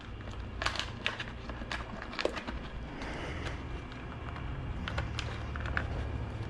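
Scattered light clicks and knocks of the motorcycle's stock rear fender assembly and its unplugged wiring being handled and worked loose, over a steady low rumble.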